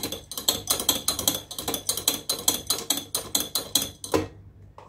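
Electric hand mixer running in a glass bowl of cake batter: a steady motor hum under a fast clicking rattle of the beaters, stopping about four seconds in.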